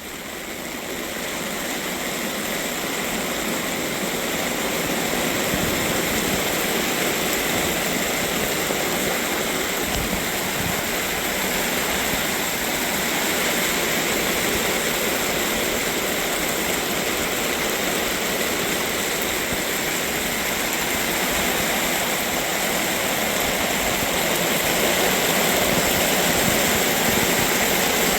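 Heavy rain pouring down in a steady downpour, growing a little louder toward the end.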